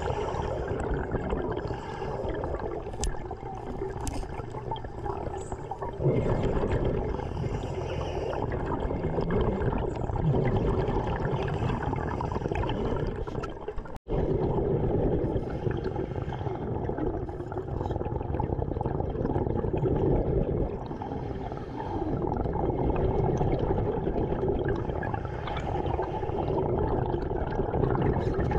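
Underwater sound of a diver breathing through an air regulator, with exhaled bubbles gurgling in surges every few seconds.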